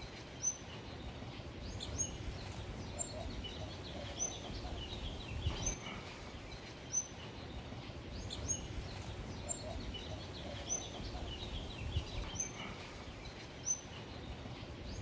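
Several birds calling: short, high chirps repeated about once a second, with scattered softer twittering.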